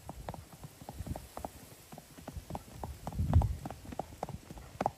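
A white mare's hooves striking a dirt track as she trots under a rider, a quick run of hoofbeats several a second. A brief low rumble about three seconds in is the loudest moment.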